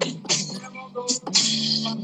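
Acoustic rock band playing: a voice singing over acoustic guitar, coming through a phone's video-call audio.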